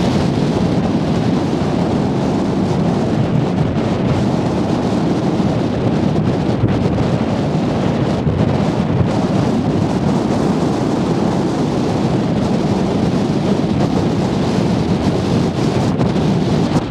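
Steady wind rumble buffeting the camera microphone.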